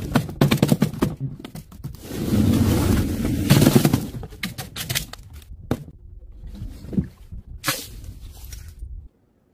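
Plastic drink bottles falling onto a hard board and crushing: a rapid run of clattering impacts, then a dense crunching crackle, then scattered single knocks and thuds. The sound cuts off suddenly near the end.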